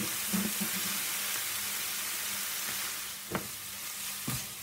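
Ground beef frying in a non-stick pan, with a steady sizzling hiss, as a wooden spoon stirs it. The spoon knocks twice against the pan in the second half.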